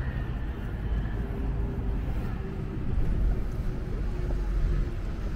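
City street ambience: a steady low rumble of traffic, with a faint held hum through the middle.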